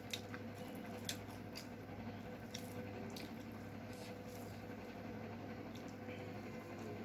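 Close-up wet eating sounds of chicken curry and rice: scattered sticky squelches and sharp little clicks, two of them louder near the start and about a second in.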